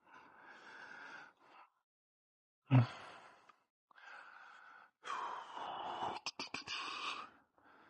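Foam packing insert being pulled out of a cardboard box and set down: rustling and scraping in several short spells, a thump about three seconds in, and a quick run of clicks and creaks near the end.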